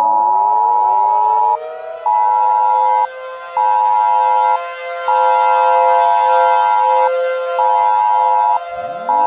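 Civil defense siren winding up to a steady wail, with a loud beeping alert tone pulsing on and off over it in a long-short-short pattern, twice. Near the end a second siren starts winding up from low pitch.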